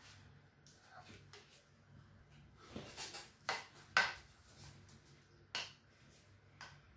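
Plastic spoon scraping and knocking against a glass baking dish and a pan while minced-meat sauce is spread, with a few sharp knocks, the loudest about three and four seconds in. A faint steady low hum lies underneath.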